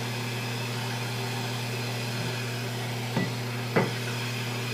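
Two short knocks over a steady low hum, a little over three seconds in and again half a second later, the second the louder.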